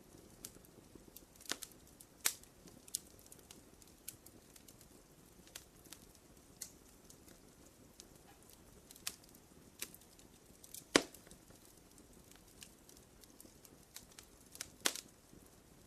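Wood fire crackling: irregular sharp pops and snaps over a faint low hiss, with the loudest pop about eleven seconds in and another strong pair near the end.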